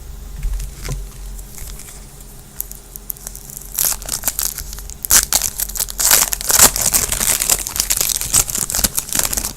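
Foil wrapper of a trading card pack crinkling and tearing open: light rustles and clicks at first, then a dense, loud crackling rustle from about four seconds in.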